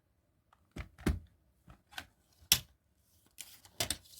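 Plastic CD jewel case being handled: a series of short clicks and knocks, the loudest about two and a half seconds in.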